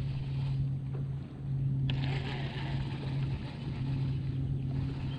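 A bass boat's electric trolling motor humming steadily at a low pitch, dropping out briefly about a second in and again past three seconds. There is one sharp click near the middle.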